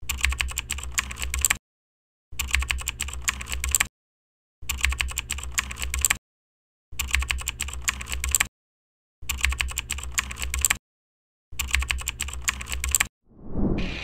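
Computer keyboard typing sound effect: six runs of rapid key clicks, each about a second and a half long, separated by short silent gaps.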